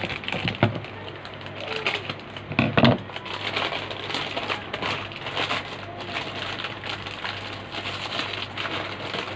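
Plastic instant-noodle packet crinkling and rustling as it is handled and opened, with one louder knock about three seconds in.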